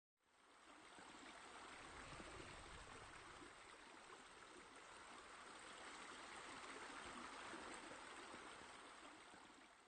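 Faint, steady running water, fading in at the start and out at the end.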